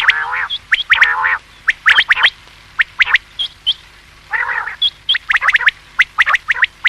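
Common quail calling: clusters of short, sharp, rising whistled notes in quick succession, with three longer, lower buzzy calls among them.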